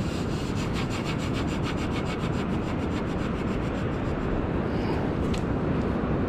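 Razor clam gun being pushed and twisted down into wet, waterlogged beach sand, its tube scraping through the sand with a rapid, even gritty rasp that fades out about halfway through, over a steady low rush.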